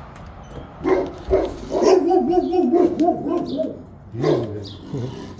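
A large brindle dog barking: a short bark about a second in, then a longer wavering bark, and another short bark a little over four seconds in.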